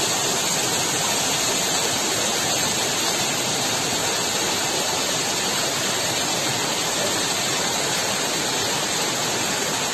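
Small mountain waterfall splashing down a rocky gully: a steady, even rush of falling water.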